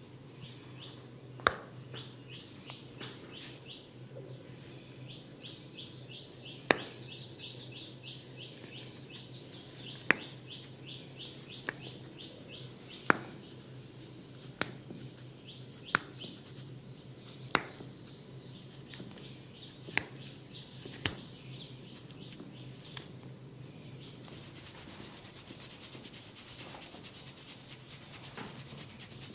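Hands rubbing and scratching hair on a scalp during a head massage, with a sharp snap every couple of seconds.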